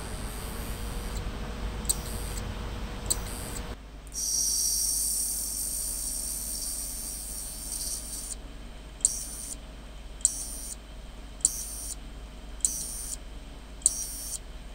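Damaged hard drives powered up under test. For about four seconds one drive spins with a steady whine and an occasional click; this is the drive that freezes the disk test. Then a 640 GB Western Digital drive that the system cannot detect gives a high hiss and a sharp click about every 1.2 seconds, five times.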